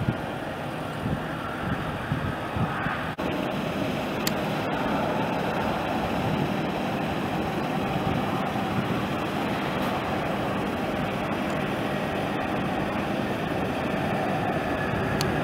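Jet engines of a twin-engine airliner running steadily on the ground, a continuous rumble and hiss, with a whine rising and growing louder near the end as the engines spool up.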